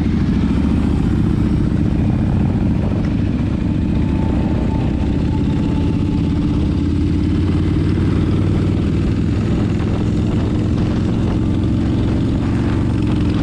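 Motorcycle engines running at steady speed on the road, a deep, continuous engine rumble with road noise.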